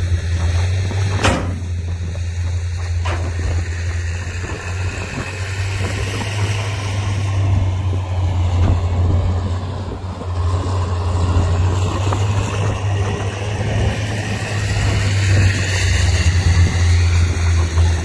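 Heavy diesel earthmoving machinery running steadily, a deep constant engine drone, with two short knocks about one and three seconds in.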